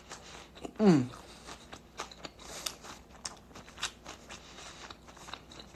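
A person chewing food, with small crunches and wet mouth clicks, and a short falling hum-like vocal sound about a second in.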